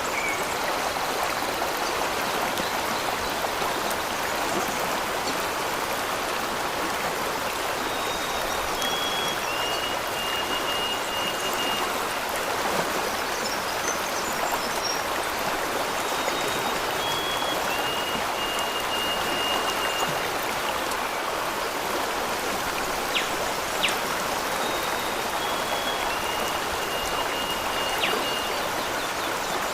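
Steady rush of a waterfall. Over it, a high whistled call steps down in pitch and then holds, heard three times, and a couple of sharp clicks sound about two-thirds of the way through.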